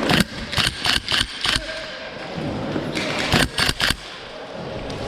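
Gas blowback airsoft rifle firing single shots in quick succession: five sharp cracks in the first second and a half, then a second string of four about three seconds in.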